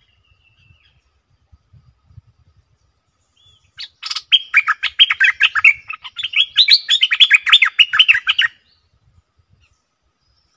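Stripe-throated bulbul singing: a fast run of short, loud notes lasting about four and a half seconds, starting about four seconds in.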